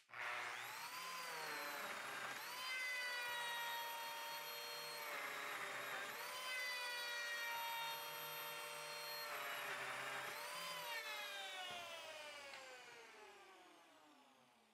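Lamello Zeta P2 joiner's motor running while it cuts P-System slots in a wooden face frame, its whine rising and dipping a few times as the cuts are made. Near the end it is switched off and winds down with a steadily falling pitch.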